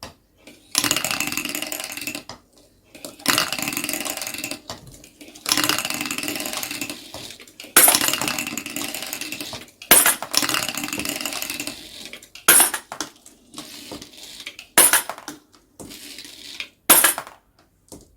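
Marbles rolling and clattering along a marble run track in repeated runs of a second or two each, each starting sharply and fading, with several sharp clinking hits in between.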